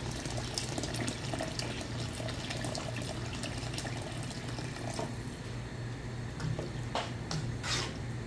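Hot water poured in a steady stream into a pot of toasted rice and vermicelli, splashing over the grains; the pour stops about five and a half seconds in. Then a slotted plastic spoon stirs the rice, with a couple of knocks against the pot near the end.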